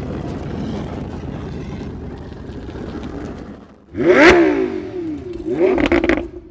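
A rushing rumble fades over the first three seconds. Then about four seconds in, an engine revs hard twice, its pitch sweeping up and falling back, and the sound cuts off suddenly near the end.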